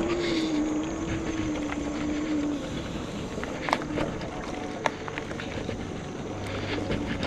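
E-bike ridden over a rough dirt trail: a steady rush of tyre and wind noise, with a wavering hum that fades out about two and a half seconds in, then a few sharp knocks from bumps.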